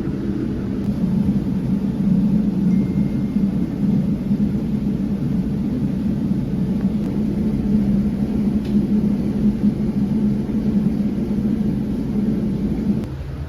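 Steady low engine rumble with a constant hum. It drops away suddenly near the end.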